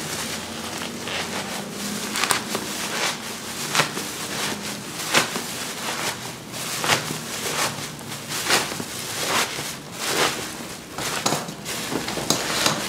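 Bubble wrap crinkling and rustling as it is handled and pulled away from a cardboard box, with irregular sharp crackles and light knocks.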